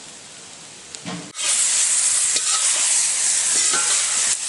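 Sliced onions and dried red chillies sizzling in hot oil in an iron wok, a loud steady hiss that starts suddenly about a second and a half in.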